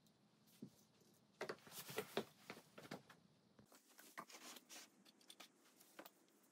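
Faint handling noises at a workbench: a run of small clicks and rustles about a second and a half to three seconds in, then a few scattered light taps as small plastic bottles and cups are picked up and set down.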